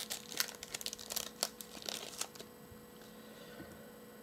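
Wrapper of a Bowman basketball card pack being torn open: a run of crinkles and crackles over the first two and a half seconds, then only faint rustling.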